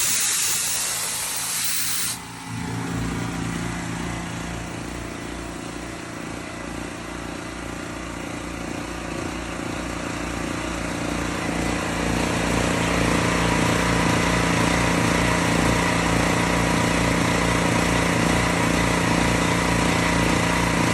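A loud hissing rush that cuts off about two seconds in, followed by an engine running steadily with an even low pulse, slowly growing louder.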